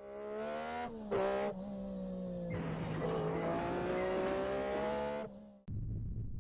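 Car engine running at high revs with a steady droning pitch, louder for a moment about a second in, with a rush of noise joining it from about two and a half seconds in. It cuts off suddenly near the end, leaving a low rumble.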